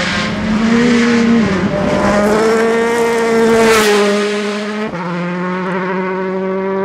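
Rally car driving flat out on a gravel stage and passing close by, its engine held high in the revs with brief dips in pitch. About four seconds in, gravel and stones spray out as it goes past.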